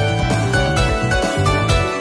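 Instrumental background music with a steady, repeating bass beat under a melody of short notes.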